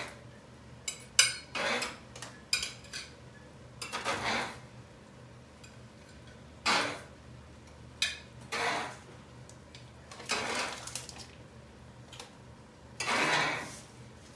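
Cookies being scraped and lifted off a baking sheet with a utensil: short, irregular scrapes about eight times, with a few sharp clinks of kitchenware.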